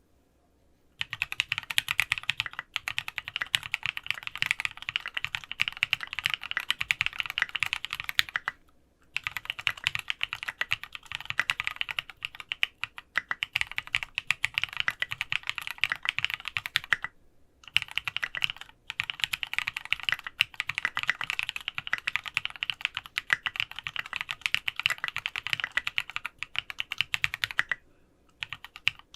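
Rapid typing on a Sangeo65 mechanical keyboard with lubed Cherry cream linear switches on an aluminium plate, fitted with ABS SA-profile keycaps (SA Oblivion v2). A steady stream of keystrokes starts about a second in, with a few brief pauses.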